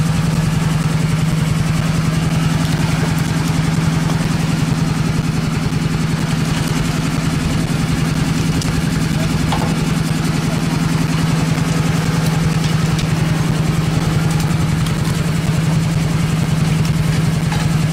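Fishing boat's engine running steadily at a constant speed, a loud low hum that does not change in pitch.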